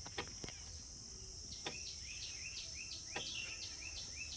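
Tractor hydraulic steering system giving faint, irregular ticks with the engine switched off: hydraulic pressure bleeding down after the steering was held at full lock, ticking the owner calls 'tak tak'. Crickets chirr steadily and a bird gives a run of short rising chirps in the middle.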